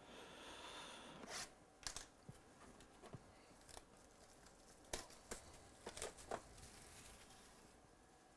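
Faint tearing and crinkling of plastic shrink wrap as it is ripped off a trading-card box, with scattered sharp crackles and ticks.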